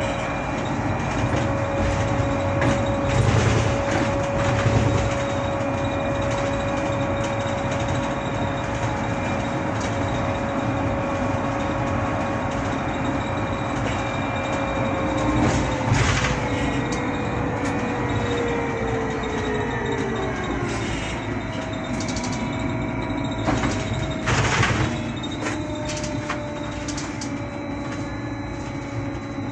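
Škoda 30Tr SOR trolleybus in motion: its electric traction drive gives a steady whine over road and ride noise. The whine falls in pitch about 16 to 20 seconds in as the trolleybus slows, a new whine takes over soon after, and a few short knocks come through near the middle and again about three quarters of the way in.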